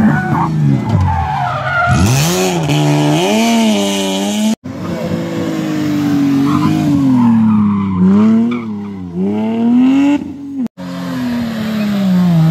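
Rally car engines revving hard as three cars accelerate past one after another, each note climbing and dropping at the gear changes. The last car is a BMW M3 E30 with a four-cylinder engine, and its note falls away near the end.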